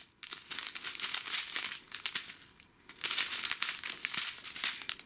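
Clear plastic strip of sealed diamond-painting drill bags crinkling as it is handled and turned over. There is a short lull about two and a half seconds in.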